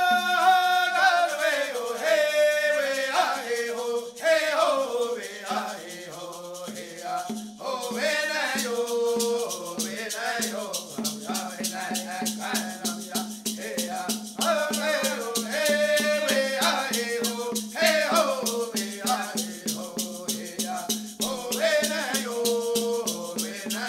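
Voices singing a Women's Dance song, a social dance song, to a fast, steady shaking of rattles.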